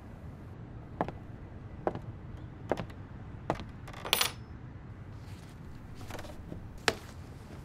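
Four even footsteps on a wooden floor, then a brief metallic jingle as small metal objects are set down on a wooden side table, and one more sharp knock near the end.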